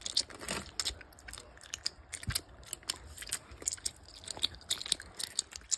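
Lollies being chewed close to the microphone: a run of irregular short crunches and clicks.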